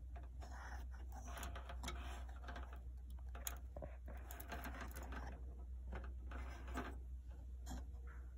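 Hands moving heat-resistant wires and plastic wire connectors inside an oven's wiring compartment: irregular soft rustles with a few sharp clicks, over a steady low hum.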